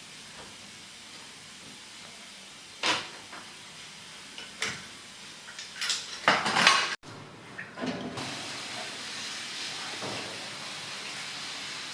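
Metal clinking and knocking as an automotive A/C compressor is worked on with hand tools: a few single sharp hits, then a busy run of clinks. After an abrupt cut, a steady hiss.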